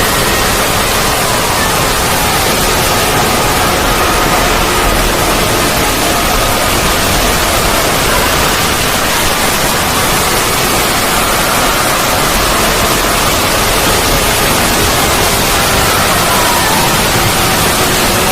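Void ambience sound effect: a loud, steady rushing noise like static, with faint high tones that waver slowly in and out beneath it.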